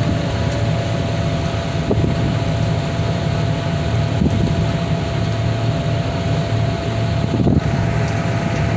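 Heavy-equipment diesel engine running steadily with a deep rumble and a constant whine, some wind on the microphone.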